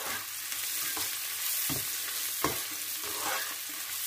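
Sliced onions sizzling in oil in a frying pan as they are stirred with a spatula: a steady sizzle with a few short scrapes or knocks against the pan, about one a second. The onions are fried glassy, with turmeric just stirred in.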